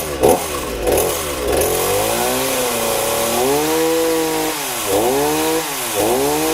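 Freshly repaired Chinese-brand two-stroke petrol chainsaw running and being revved hard. It gives several quick blips first, then longer held revs with the pitch dropping back between them. It is a test run showing the saw runs well after repair.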